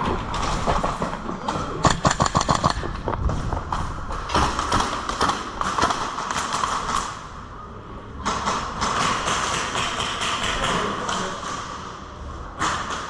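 Airsoft guns firing, including a fast burst of about ten shots about two seconds in, with scattered single clicks and knocks of movement around them.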